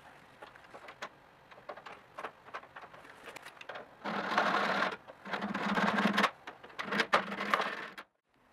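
Steel spur gear train on a barbecue's rotating mechanism: light clicks of the gears being moved by hand, then three bursts of about a second each of a cordless drill spinning the gears with a whirring rattle of meshing teeth. The sound cuts off abruptly just before the end.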